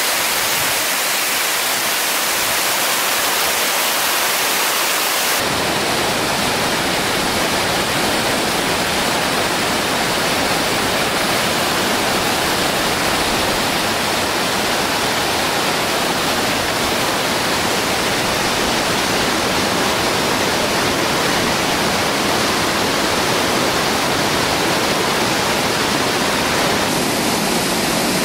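Whitewater rapids rushing in a steady, unbroken noise; about five seconds in it becomes fuller and deeper.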